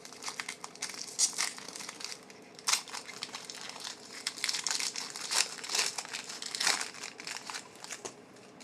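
Trading card pack wrapper crinkling and tearing in the hands as a pack is opened and handled, in irregular crackles with a few louder rips.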